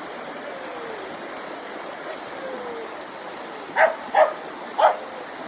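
Stream running steadily over rocks, with a dog barking three times in quick succession near the end, the barks much louder than the water.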